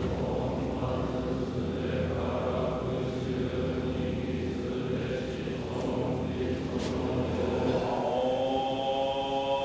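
A group of Zen Buddhist monks chanting a sutra in unison: a dense, steady drone of many low voices. Near the end the low drone drops away and clearer, higher held tones take over.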